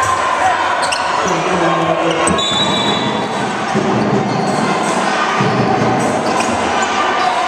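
Spectator crowd noise in an indoor basketball hall, chatter and shouts from the stands, with a basketball bouncing on the wooden court.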